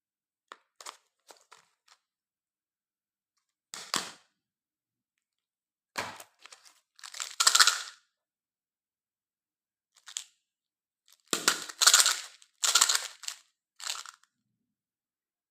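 Candy and its plastic packaging being handled: a few light clicks, then separate bursts of crackling and crunching, the loudest around the middle and in a cluster near the end.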